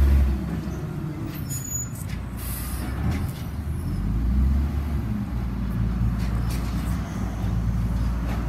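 Diesel engine of a Mack LE side-loader garbage truck running as the truck pulls forward, a low rumble that swells about halfway through, with a short hiss of air about two and a half seconds in.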